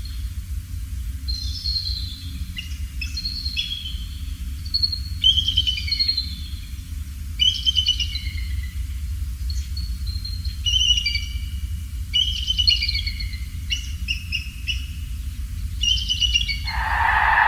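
Bald eagles calling: a long run of high, stuttering, chittering calls, some dropping in pitch, repeating about once a second. A steady low rumble runs underneath.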